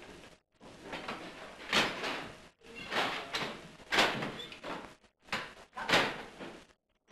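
Mechanical signal-box levers being thrown in the lever frame: three heavy metal clanks, about two seconds apart, each ringing on briefly.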